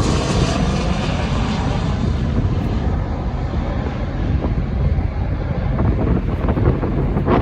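Boeing 737 jet engines running loud as the airliner passes, the high hiss fading over the first few seconds as it moves away and leaving a steady low rumble. Wind buffets the microphone near the end.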